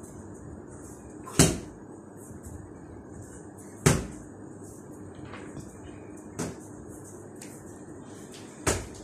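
Four sharp thumps about two and a half seconds apart, the third one weaker, over a faint steady hum.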